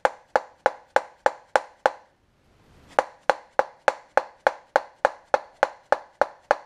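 A rubber hammer tapping a bearing into the aluminium housing of a BMW HSR active-steering actuator: sharp, evenly spaced taps about three a second, with a brief pause about two seconds in. The bearing is being driven home until it seats against its stop, a metal-on-metal "tick tick".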